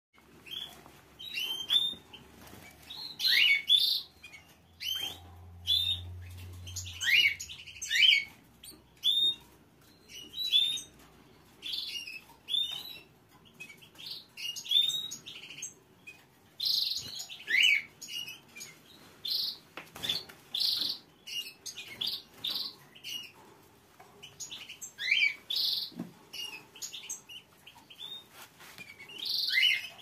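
Caged domestic canaries chirping: short, high, separate chirps and call notes, many dropping in pitch, repeated with brief gaps throughout.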